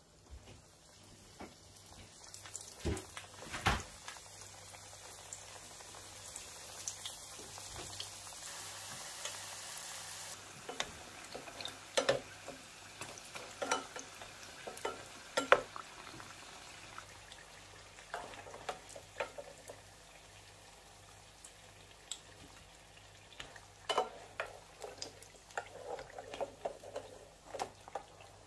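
Samosas deep-frying in a pan of hot oil: a steady sizzle, loudest for the first ten seconds or so. Scattered sharp taps and clicks come from a slotted spoon against the pan as the samosas are turned and lifted.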